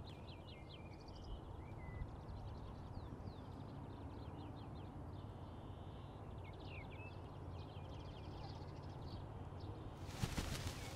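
Outdoor ambience of small birds chirping, many quick short calls over a faint low background hiss. A brief rush of noise comes about ten seconds in.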